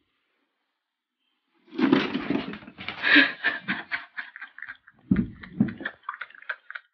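A cat scratching and pawing at the bottom of a closed door: a quick, uneven run of scratching strokes and clicks starting about two seconds in, with a couple of dull knocks of the door near the middle.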